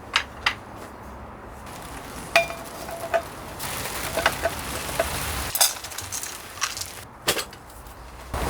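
Metal camping gear clinking and clanking in a series of sharp knocks, one clang ringing briefly about two and a half seconds in, with a rush of wind in the middle.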